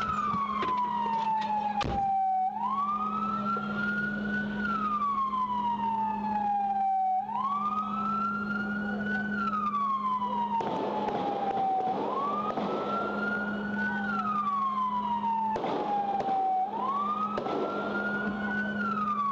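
Police siren in wail mode: one tone that climbs quickly, then falls slowly, repeating about every four to five seconds, about four times, over a steady low hum.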